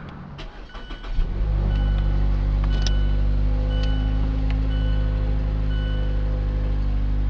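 A 2015 Mazda 3's four-cylinder engine starting about a second in and then idling steadily, with the car's warning chime beeping about once a second over it.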